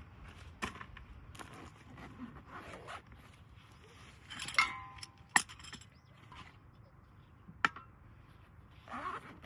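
Scattered clicks and knocks of small hard objects being handled. The loudest is a short ringing clink near the middle, with two sharp clicks after it.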